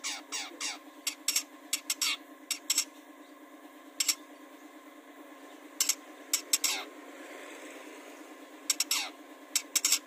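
Long-tailed shrike calling: clusters of short, harsh, rasping notes, a few sliding quickly downward, with pauses in between.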